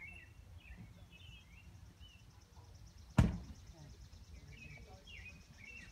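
Small birds chirping repeatedly over a faint, steady, high-pitched buzz and a low rumble. A single sharp thump about three seconds in is the loudest sound.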